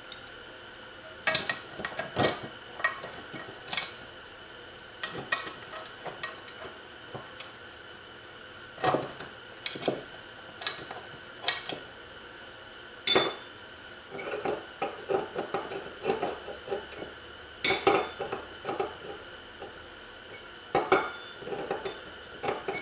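Steel roller chain and clutch plates clinking and clicking against an aluminium scooter engine case as the primary chain and clutch are fitted by hand: a string of irregular light clicks with a few sharper knocks, the loudest about halfway through and again a few seconds later.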